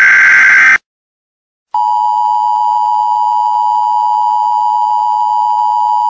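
Emergency alert signalling: a harsh, buzzy data-burst header ends just under a second in, and after a brief silence a steady, loud emergency-alert attention tone near 1 kHz begins and holds.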